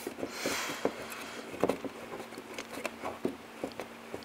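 Light, irregular metallic clicks and taps as the self-adjuster on a drum brake shoe assembly is wound off by hand, easing the tension on the top return spring.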